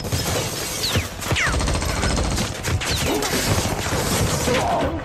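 Rapid pistol gunfire in a film soundtrack, shot after shot in quick succession, with a few short falling whines among the shots.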